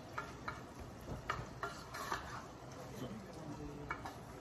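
A utensil stirring ground beef in a pan, with several sharp taps and scrapes against the pan and a low sizzle underneath.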